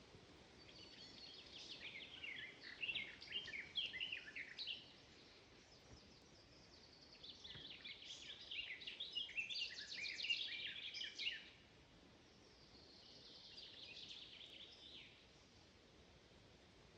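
A small songbird singing: three phrases of rapid high chirping notes, each a few seconds long, the third fainter, over faint steady background hiss.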